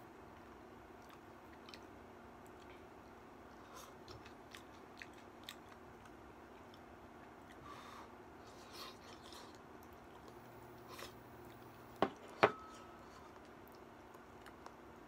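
Quiet eating at a table: chewing and small clicks of chopsticks against a ceramic bowl. About twelve seconds in, the bowl and chopsticks are set down on the table with two sharp knocks, the second ringing briefly.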